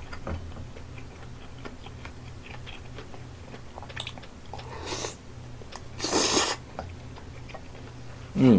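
Close-up eating sounds: a mouthful of spicy stir-fried pork intestines (gopchang bokkeum) being chewed with small wet clicks. Two loud airy slurps come about five and six seconds in, the second the louder. A low steady hum runs underneath.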